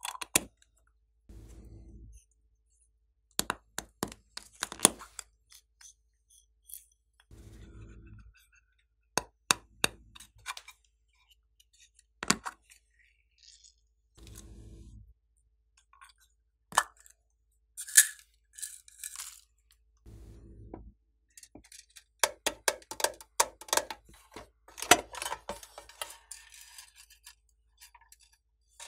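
Hard plastic containers clicking, knocking and clinking as they are handled and opened over a tray of slime: many short, sharp clicks, busiest in the second half. A faint low hum comes and goes four times.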